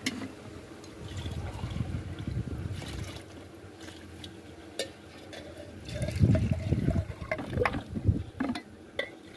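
Milk sloshing and pouring as it is scooped from a plastic bucket with small steel measuring cups, swelling twice, with a few light clinks of metal cups.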